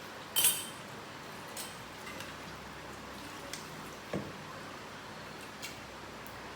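A short splash of water into a pressure cooker holding chicken pieces about half a second in, followed by a few faint clicks and a light knock.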